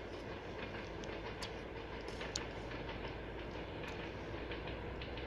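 TEP70 diesel passenger locomotive approaching with its train: a steady rumble of engine and rolling wheels, with a few brief high-pitched squeaks.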